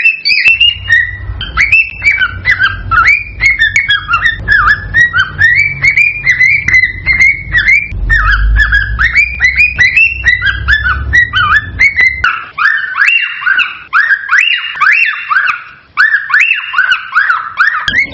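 Cockatiels whistling and chirping in a rapid, excited warble of short rising and falling notes. A low rumble runs under the calls and stops about twelve seconds in.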